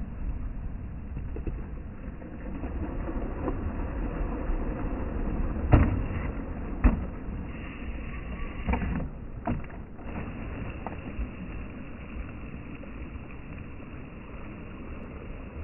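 Steady low rumble of sea and wind, with four sharp knocks in the middle, the loudest about six seconds in.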